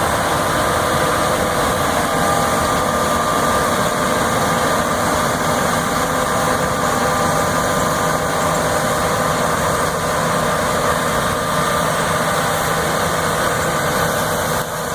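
John Deere S690 combine's 13.5-litre engine and harvesting machinery running steadily while cutting wheat: an even drone with several constant whining tones.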